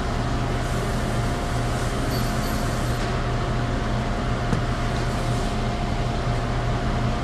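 Steady whir and hum of commercial kitchen equipment at a fast-food burger station, with a constant low hum and a thin steady whine over it.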